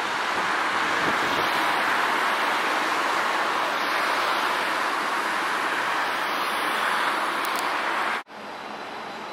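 Steady rushing outdoor street ambience at a tram stop, an even hiss with no distinct events. It cuts off abruptly about eight seconds in, giving way to a quieter, similar background.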